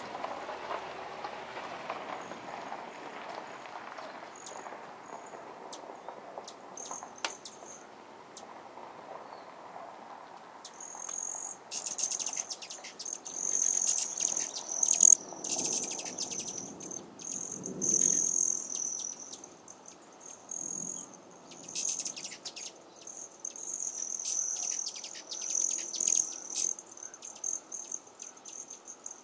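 An insect trilling in a high, fast-pulsing buzz, coming in bouts of several seconds with short breaks, starting about a third of the way in. Before it, only a soft outdoor wash.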